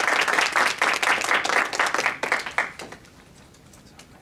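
Audience applauding, the clapping thinning out and dying away about three seconds in.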